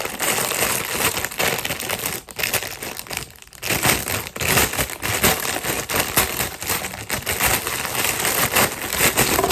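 Plastic packaging crinkling and rustling as it is handled and opened, dense and fairly loud, with two short pauses a few seconds in.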